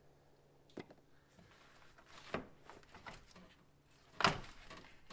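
A few separate knocks and clatters of tools and parts being handled during engine disassembly, the loudest one about four seconds in.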